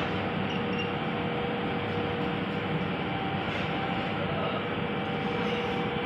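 Steady mechanical rumble with a faint, even hum running through it.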